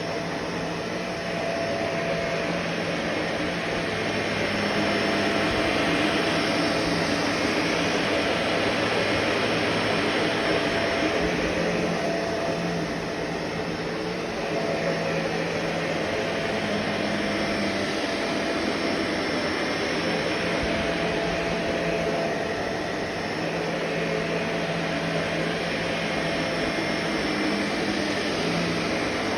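Vacuum cleaner running steadily with a whirring motor, its level swelling and easing every few seconds.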